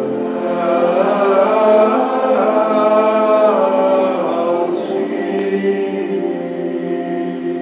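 Choir singing Gregorian chant. A flowing, gliding melody settles into long held notes about five seconds in.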